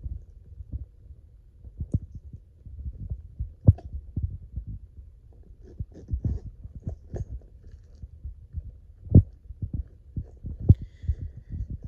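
Irregular low thumps and bumps of handling noise as a hand grips and moves a small wristlet bag on bedding, over a low rumble; the loudest knock comes about nine seconds in.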